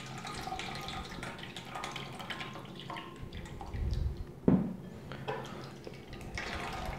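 Soaked bulgur wheat and its water poured into a fine mesh sieve, the water draining and dripping into a stainless steel bowl below. There is a brief knock a little past halfway through.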